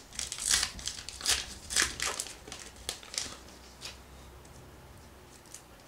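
A baseball card pack's wrapper being torn open and crinkled by hand: a quick run of sharp rustles over the first three seconds or so, then only soft handling.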